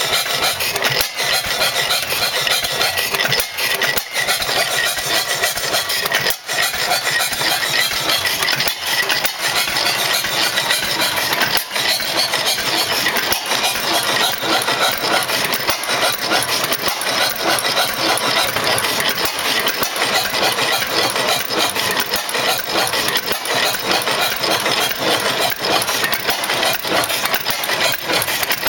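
Circa 1903 tank-cooled Challenge hit-and-miss engine running, with a steady, busy mechanical clatter.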